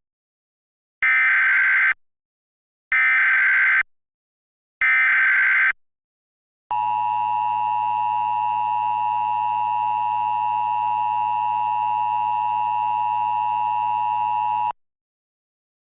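Emergency Alert System header: three short bursts of SAME digital data tones, each just under a second long and about a second apart, encoding the coming alert. After a brief gap comes the long, steady EAS attention tone, held about eight seconds and cutting off sharply, signalling that an emergency message follows.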